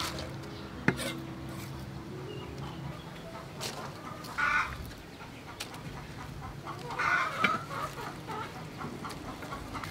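Hens clucking in short raspy bursts, twice, with a single sharp knock about a second in.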